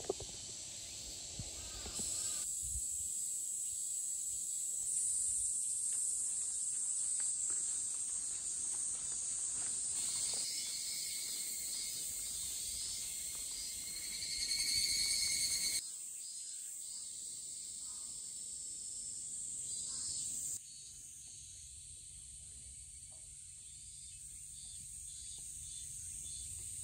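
A steady, high-pitched chorus of insects shrilling in summer vegetation, which changes abruptly several times. Between about ten and sixteen seconds in, a louder, lower buzzing insect song joins it.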